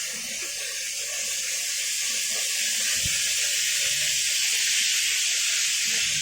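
Minced garlic sizzling in hot oil in a pan: a steady, even hiss that builds slightly over the first couple of seconds and then holds.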